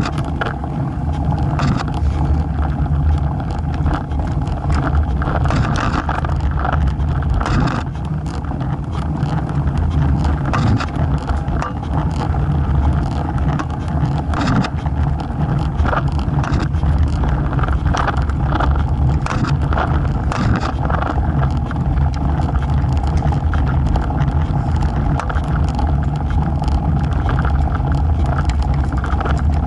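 Road bike rolling along paved road, with steady wind rumble on the microphone mounted by the wheel, tyre noise, and frequent small clicks and rattles from bumps.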